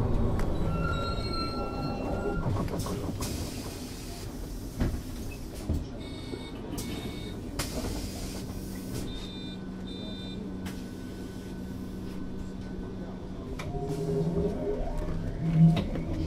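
Electric drive of a 2001 Berkhof Premier AT 18 articulated trolleybus: the traction motor whine dies away at the start, leaving a quieter stretch with a steady low hum and several short electronic beeps. About fourteen seconds in, the whine rises again in pitch as the bus pulls away.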